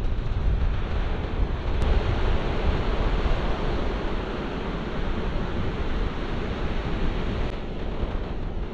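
Waves breaking in the surf, a steady wash of noise, with wind rumbling on the microphone.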